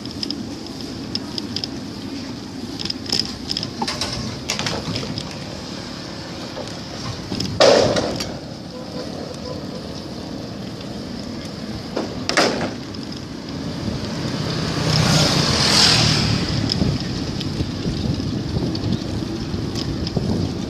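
Steady road and riding noise recorded from a bicycle on the move, with scattered rattles and ticks. There are two sharp knocks, about eight and twelve seconds in, and around fifteen seconds in a vehicle passes, swelling and fading.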